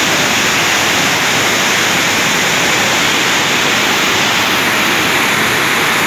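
Large multi-tiered waterfall in full flow, its water pouring over stepped rock ledges in a loud, steady rush.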